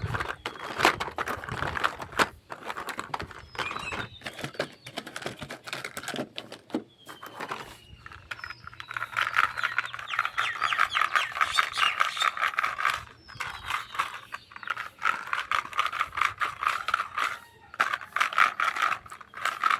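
Small plastic toy kitchen pieces and their packaging being handled: scattered clicks, taps and rattles, with long stretches of dense, rapid crackling in the second half.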